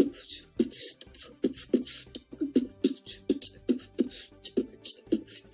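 A fast rhythmic beat, like beatboxing or a drum track: short low thumps about twice a second, with hissy, hi-hat-like clicks between them.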